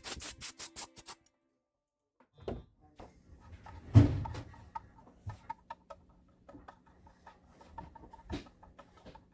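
Mandolin being picked in quick repeated notes for about a second, then cut off. After a short silence come a loud single knock, a low steady hum and scattered small clicks and taps.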